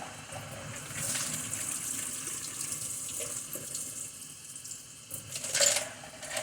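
Kitchen sink tap running water, coming on about a second in and easing off, with a brief louder rush of water near the end.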